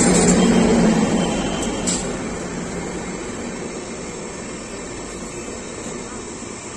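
Indian Railways WAP-7 electric locomotive passing close by, followed by its passenger coaches rolling past on the rails. The rumble is loudest as the locomotive goes by, then eases off gradually as the coaches pass, with a single sharp click about two seconds in.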